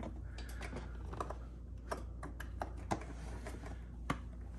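Light, irregular clicks and taps of small parts being handled: a brass quick-disconnect fitting being worked through the hole in a generator's plastic side panel.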